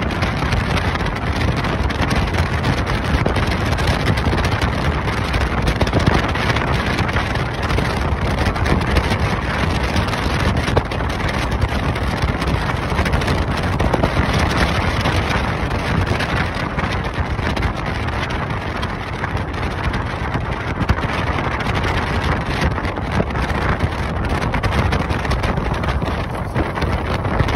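Steady wind noise on the microphone over the road and engine noise of a moving car.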